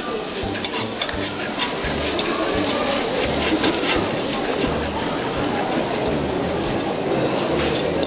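A goat-cheese sauce sizzling and bubbling in a stainless steel pot as it is stirred with a spoon: a steady hiss dotted with small crackles.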